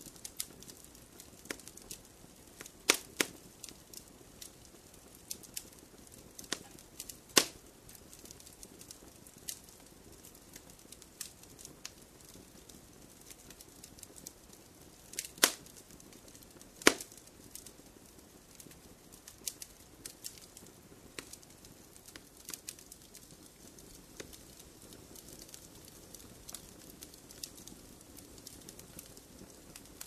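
Wood fire in a fireplace crackling: irregular sharp pops and snaps over a soft low hiss. A few louder snaps come about three seconds in, around seven seconds, and twice in the middle.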